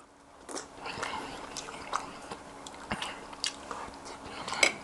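A man chewing a mouthful of beef stew close to the microphone: irregular wet mouth clicks and smacks, with a few louder ones near the end.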